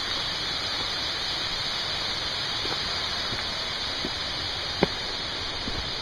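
Steady rushing of a waterfall heard from the trail, with a few faint ticks and one sharp tap about five seconds in.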